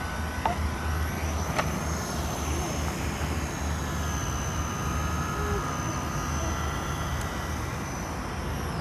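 Battery-powered radio-controlled model helicopter in flight: a steady high motor whine that drifts slightly up and down in pitch as the throttle changes, over a low rotor hum.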